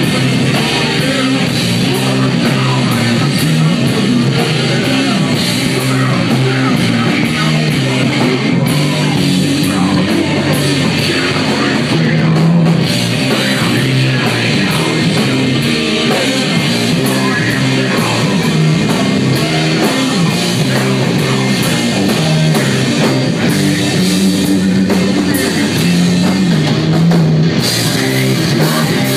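Doom metal band playing live: heavily distorted guitar and bass riffing over a drum kit, with vocals.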